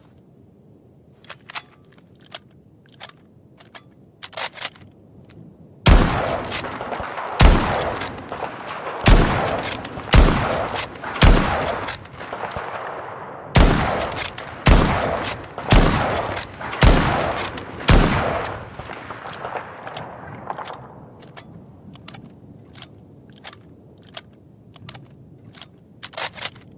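Lee Enfield No.4 .303 rifle fired ten times in quick succession, two strings of five about a second apart, each shot echoing out. Lighter sharp clicks come before and after the shooting.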